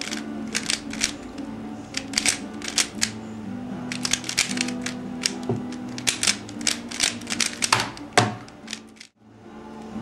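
Plastic layers of a Dayan Guhong 3x3 speedcube clacking in quick clusters of turns during a speedsolve, over background music. The sound drops out briefly near the end.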